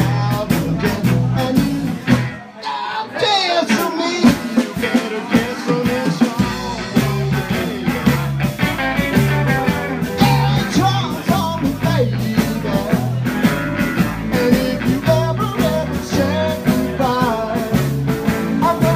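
Live rock music from a small band: electric guitar over a repeating bass line and a steady drum beat.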